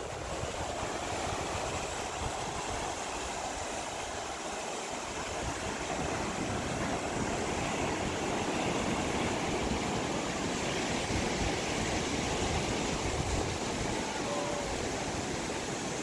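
Surf washing in on a sandy ocean beach: a steady rush of waves that swells a little in the middle.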